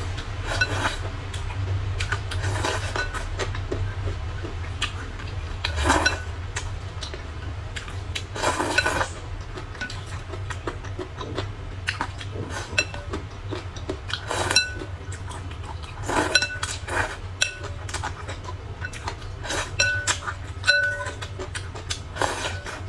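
Utensils clinking against dishes in irregular, sharp taps, some leaving a brief ring, over a steady low hum.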